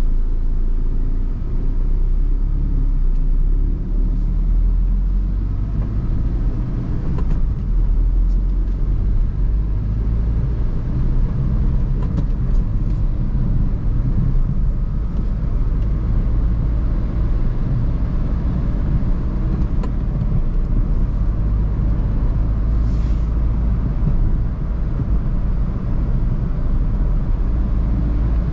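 Steady low rumble of a Maruti Suzuki Swift Dzire being driven: road and engine noise.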